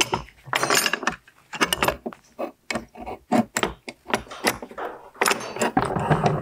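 Irregular metallic clatter and knocks from steel angle-iron pieces being handled and clamped at a drill press.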